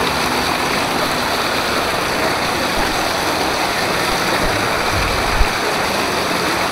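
Water rushing steadily along a water slide during a ride, with a short low bump about five seconds in.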